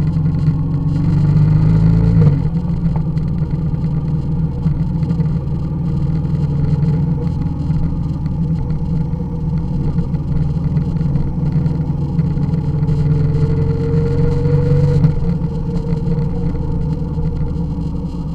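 Motorcycle engine running under way, heard from a camera mounted on the bike. The engine note changes abruptly twice, about two seconds in and again later, as the rider changes throttle or gear.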